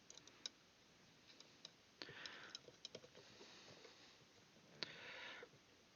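Faint scattered clicks and two brief light scrapes, one about two seconds in and one near the end, as alligator clips are handled and threaded onto the arms of a third-hand soldering stand.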